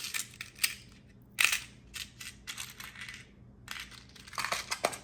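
Small pieces of a tool set and their plastic packaging being handled: scattered light clicks and rattles with brief rustles, the loudest rustle about a second and a half in and a run of clicks near the end.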